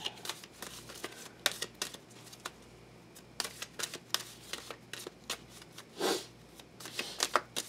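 A deck of tarot cards shuffled overhand by hand: an irregular run of soft clicks and snaps as packets of cards slide off and drop onto the deck. A brief low sound comes about six seconds in.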